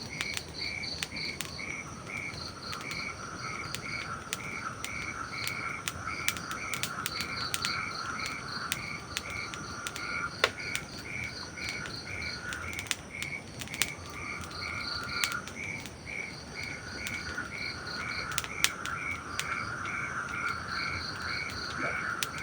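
A night chorus of calling frogs and insects: a regular chirp about twice a second, a higher broken trill and a lower buzzing trill that drops out now and then. Scattered sharp pops of a crackling campfire sound over a steady hiss of rain.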